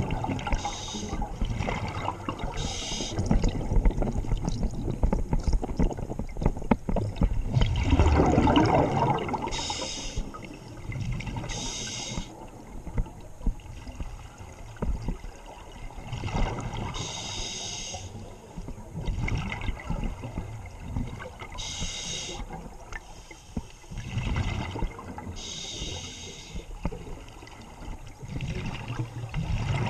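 Scuba diver breathing through a regulator underwater: a hissing inhalation about a second long every few seconds, and bursts of bubbling exhaust bubbles between them, the loudest about eight seconds in.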